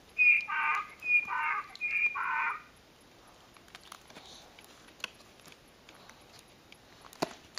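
Donkey bray played from a children's sound book's built-in sound chip when the donkey picture is pressed: three hee-haw calls in quick succession in the first two and a half seconds. Quiet page handling follows, with a sharp click near the end.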